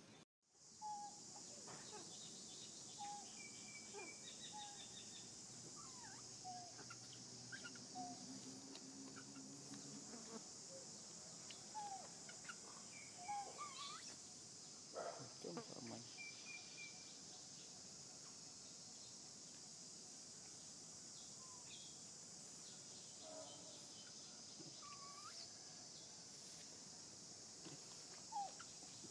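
Faint outdoor ambience: a steady high-pitched insect drone, with scattered short chirps and squeaks over it.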